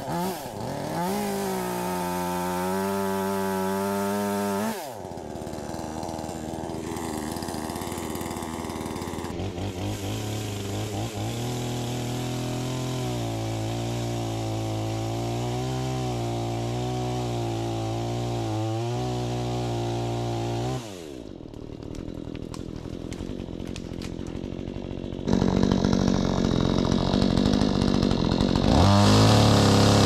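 Chainsaw cutting up the branches of a fallen tree, its pitch wavering as it bites into the wood. It runs in bursts and winds down when released after each cut. The loudest run comes near the end.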